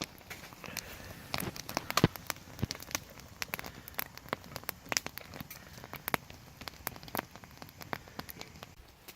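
Wood campfire crackling, with irregular sharp pops over a faint hiss; the loudest pop comes about two seconds in.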